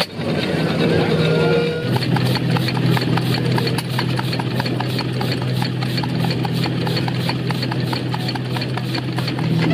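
Vintage stationary engines running with a steady low hum; from about two seconds in, a rapid, regular mechanical clicking joins in, about four to five clicks a second.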